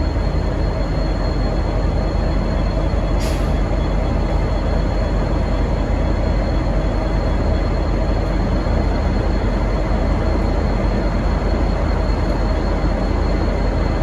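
V/Line N class diesel-electric locomotive running steadily as it begins to pull out, a dense rumble with a short sharp click about three seconds in.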